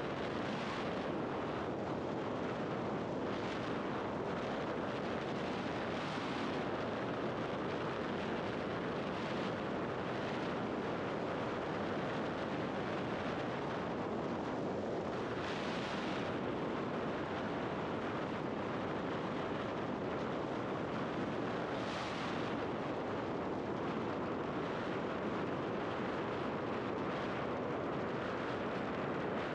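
Steady wind rush buffeting a helmet-mounted microphone, with road noise, while riding a scooter at speed. The hiss swells briefly twice.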